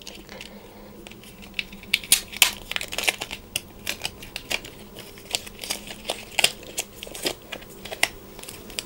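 Packaging wrap crinkling and rustling as it is worked off a coiled charging cable by hand, with many irregular crackles and ticks.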